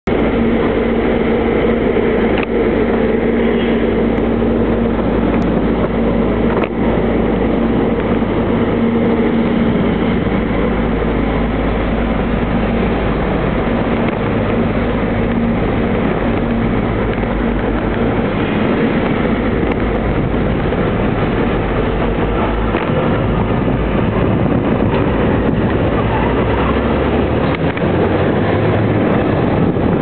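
Ikarus 260 natural-gas city bus engine running and then pulling away, heard under heavy wind rumble on the microphone of a moving bicycle. A steady low hum through the first half fades about 15 s in.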